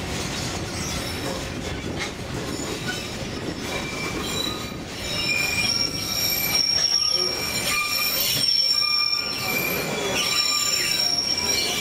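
Narrow-gauge train cars rolling along the track with a steady low rumble. About four seconds in, the wheels begin a steady high-pitched squeal in two pitches against the rails, as the train rounds a bend.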